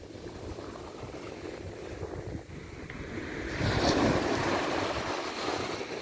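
Small waves breaking and washing up onto a sand beach, the surf swelling louder about halfway through.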